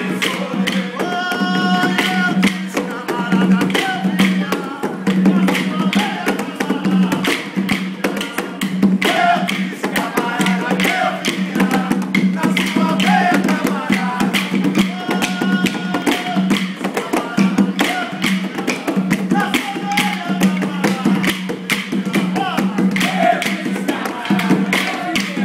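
Maculelê music: a group sings a call-and-response chant over percussion, with wooden maculelê sticks clacked together in a fast, steady rhythm of sharp clicks.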